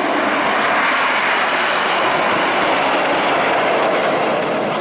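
Formation of nine Red Arrows BAE Hawk jets flying past. Their jet engines make a loud, steady rushing noise that swells at the start and begins to fade near the end.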